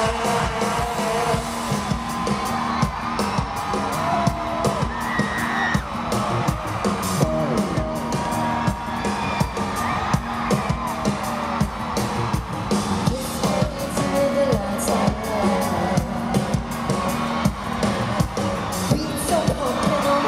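Live pop music played loud over an arena sound system, with a steady beat, and crowd whoops and screams over it.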